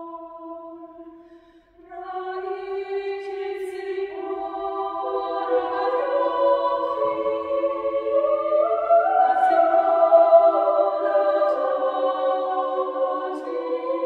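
Mixed choir singing unaccompanied in sustained chords. A held chord dies away about a second and a half in, and after a brief pause the voices come back in about two seconds in, entering in layers and growing louder toward the middle.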